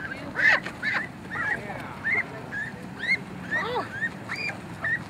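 A flock of penned Canada geese calling over one another: many short rising-and-falling calls overlapping throughout.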